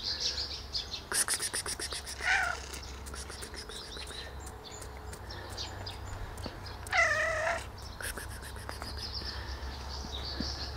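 White stray cat meowing twice, a short meow about two seconds in and a longer, louder one about seven seconds in: a hungry cat begging for food. A quick run of clicks comes about a second in.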